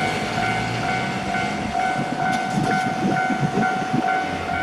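Japanese level crossing's electronic warning bell ringing in an even, repeating ding pattern, with a passing train's low rumble underneath from about two seconds in.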